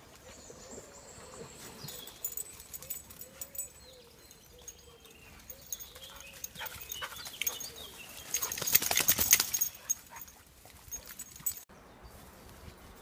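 A dog trotting along a woodland footpath through undergrowth, with footsteps and rustling leaves, and a louder burst of close rustling about two-thirds of the way through.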